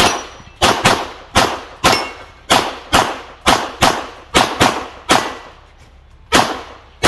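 Rapid handgun fire in a practical shooting (IPSC) course of fire: about a dozen pistol shots, many of them in quick pairs aimed at each target, with a pause of about a second near the end.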